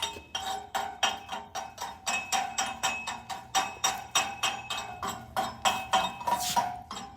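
Chipping hammer knocking slag off a flux-core weld on steel plate, about three strikes a second. Each strike sets the plate ringing at the same few metallic pitches.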